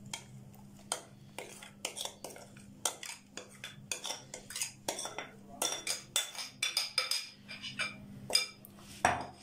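Irregular light clinks and scrapes of kitchenware, a few each second, as yogurt-spice marinade is scraped from a glass bowl onto raw chicken in a steel bowl. A faint steady low hum runs underneath.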